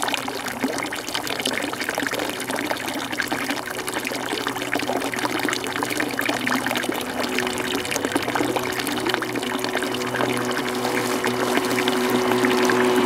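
Steady splashing of running or pouring water, dense with small clicks. Music starts to come in near the end.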